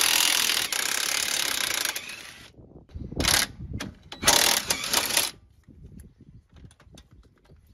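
Cordless impact wrench running on suspension nuts that have been freed with an extension bar: one long run of about two and a half seconds, then two shorter bursts, followed by faint clicks of the tool and parts being handled.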